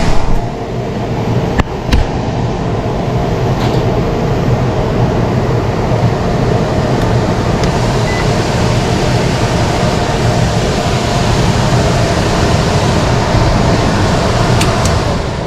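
Indoor air handler's blower running steadily with a low hum and a rush of air, with a few faint clicks; it begins to wind down at the very end as the heat pump system shuts off.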